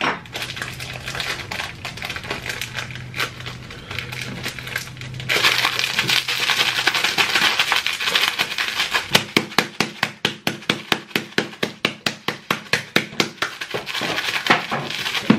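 A cookie's plastic wrapper being handled and crinkled open, with a loud rustle about five seconds in. After that comes close-up chewing of the crunchy cookie, a regular crunch two or three times a second.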